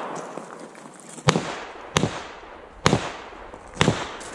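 Four handgun shots fired in quick succession, a little under a second apart, each with a short fading echo.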